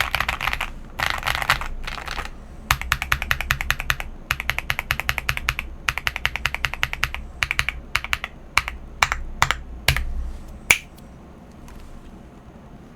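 Typing on a CIY GAS 67 mechanical keyboard with unlubed KTT Wine Red linear switches, GMK DMG clone keycaps and a taped, foam-filled case. Fast runs of keystrokes thin out to slower single presses, the last of them loud, about three-quarters of the way through.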